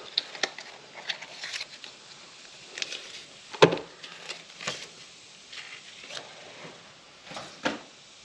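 Paperboard earbud packaging being handled and set down on a wooden table: scattered light taps and scrapes, with a louder knock about three and a half seconds in and a few more near the end.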